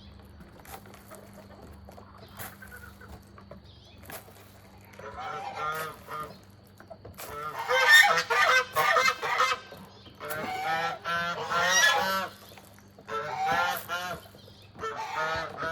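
Domestic goose honking in repeated bouts of rapid honks, starting about five seconds in and loudest in the middle.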